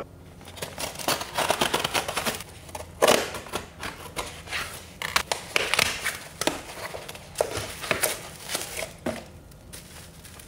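Scissors cutting the packing tape on a cardboard box, then cardboard flaps and plastic wrapping rustling and crinkling as the parcel is unpacked: a run of irregular scrapes and rustles, the sharpest about three seconds in.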